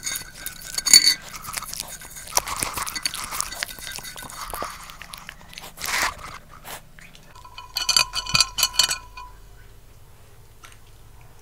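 A West Highland terrier licking and chewing at an emptied ceramic plate right beside a small microphone, making close, crackly mouth sounds. About seven and a half seconds in, bamboo skewers clink and rattle against the plate for a second or two as the dog picks one up.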